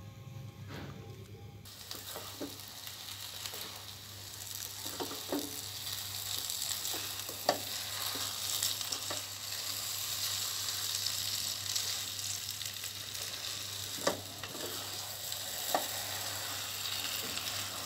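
Thick semolina halwa sizzling in ghee in a wok as it is stirred and turned with a silicone spatula, with a few sharp clicks of the spatula against the pan; the sizzle comes on about two seconds in. The halwa is cooked down and nearly finished.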